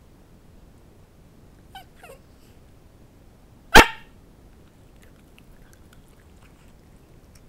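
A dog whimpers twice briefly, then gives one single sharp, very loud bark: a trained 'speak' bark, given on cue to earn a piece of chicken.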